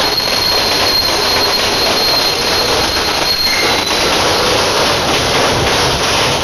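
Rockwool sandwich panel production line running: a loud, steady mechanical din with a faint high whine through the first few seconds.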